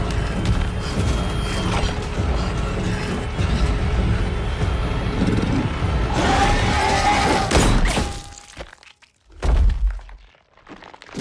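Film soundtrack of a monster attack: dense, tense music and crashing effects, with a shrill creature screech about six seconds in. The mix cuts off abruptly about eight seconds in, and two deep booming hits follow, the second at the very end.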